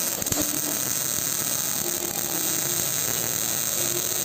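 MIG welding arc burning steadily: a continuous hiss strongest in the high range, with a few sharp clicks near the start.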